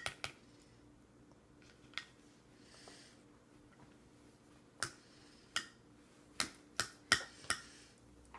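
Plastic baby spoon clicking and tapping against a plastic bowl: a few sharp, separate clicks, then a quicker run of six clicks in the second half.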